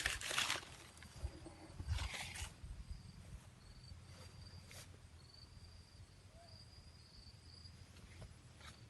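Dry, brittle leaves rustle and crackle as they are handled, at the start and again about two seconds in. After that a faint, high, broken insect trill comes in, like a cricket.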